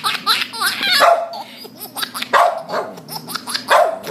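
A dog barking three times, about a second and a half apart, with a baby's squealing giggles in between.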